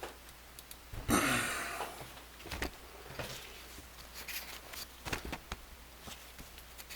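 Quiet room with a few faint scattered clicks and one louder, brief hissing rustle about a second in.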